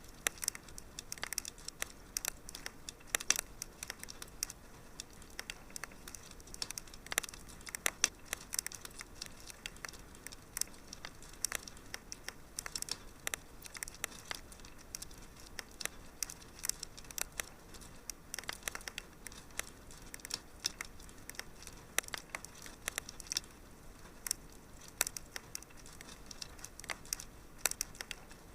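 Wood fire crackling in a fireplace: irregular sharp snaps and pops, several a second, over a soft steady hiss.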